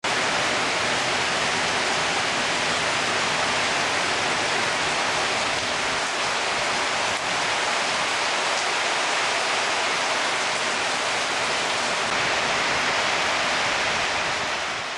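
Steady heavy rain, an even hiss that holds level throughout and eases slightly just before the end.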